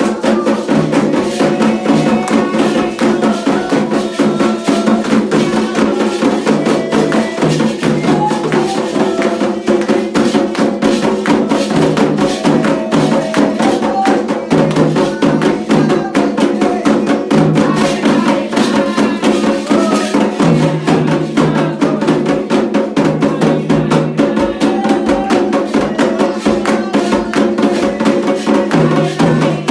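Candomblé ritual music: hand drums and other percussion in a steady, dense, fast rhythm for Xangô.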